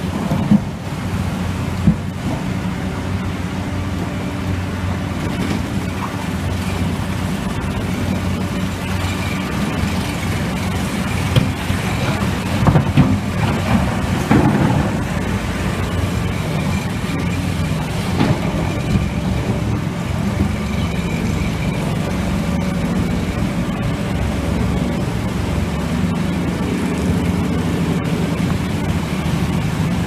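Hitachi EX-1200 excavator's diesel engine running steadily under load as it digs limestone, with a burst of rock clattering and knocking against the steel bucket a little before the middle.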